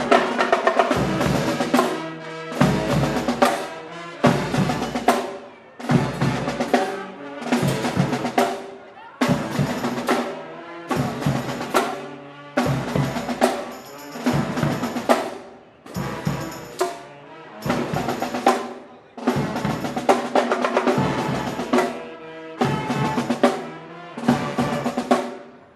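Street band of drums and brass playing in short, loud stop-and-go phrases, about one every second and a half, with a bass horn line beneath the drums.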